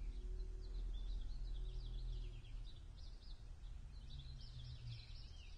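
Outdoor birdsong: wild birds chirping in rapid high trills, thickest in the second half, over a steady low rumble.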